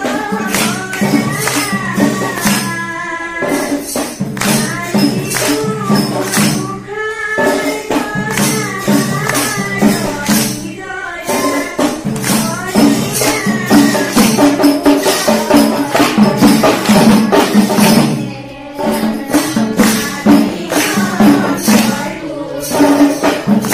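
Group of children singing Diha Naam, an Assamese devotional chant, to a steady beat of hand claps, with short pauses between lines.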